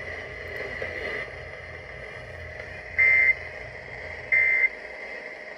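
Emergency Alert System end-of-message data bursts: two short, loud digital squawks about a second and a half apart, marking the end of the flash flood watch alert, over the radio receiver's steady hiss and hum.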